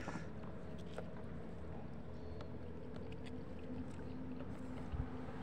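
Quiet open-water ambience around a floating inner-tube fishing rig: a low steady hum, a few faint light ticks, and a soft bump about five seconds in.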